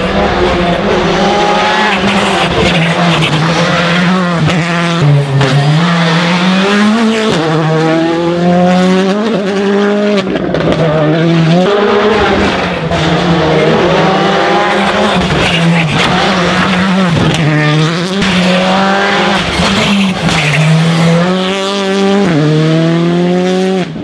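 Rally car engine driven hard, its pitch climbing steeply and dropping back again and again as it runs up through the gears and lifts off, with tyre noise underneath.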